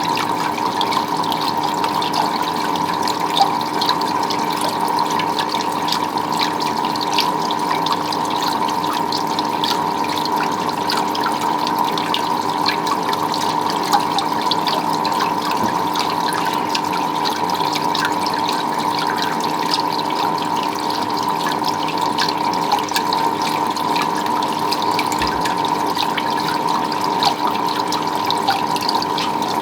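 Steady running, splashing water with many small drips and spatters, over a faint steady hum.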